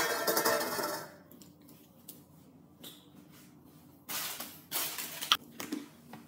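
Handling noise at a kitchen counter: a loud scraping rustle that fades within the first second, then quiet, then a few short rustles and a sharp click about four to five seconds in.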